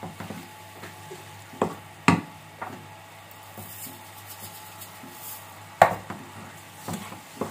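Wooden spoon stirring grated carrots for gajar ka halwa in a metal kadai, with a faint sizzle. There are a few sharp knocks against the pan, the loudest past the middle. Sugar is poured in with a soft hiss.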